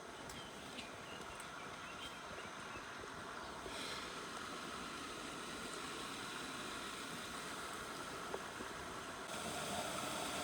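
Steady rushing of a waterfall, growing slightly louder about four seconds in and changing in tone near the end.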